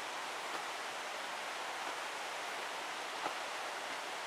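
Steady, even rushing noise of the outdoor background, with a single faint click about three seconds in.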